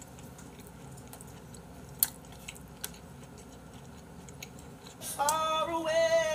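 Quiet chewing and handling of udon noodles with wooden chopsticks, with a few sharp clicks. About five seconds in, wavering melodic music starts.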